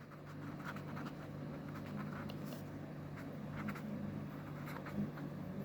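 Faint scratching of a pen writing, in short scattered strokes, over a steady low electrical hum.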